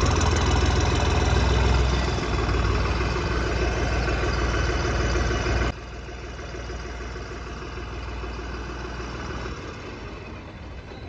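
Tractor engine idling steadily. A little over halfway through, the sound drops suddenly to a quieter level and goes on.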